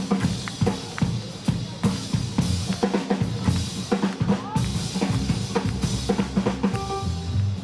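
Live drum kit playing a busy rock'n'roll drum break: fast snare hits and rimshots over the bass drum, with double bass notes underneath. Short repeated piano chords come in near the end.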